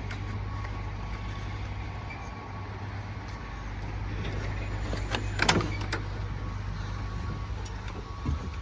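Mack MP8 diesel engine of a concrete pump truck idling steadily, with one short squeak about five seconds in.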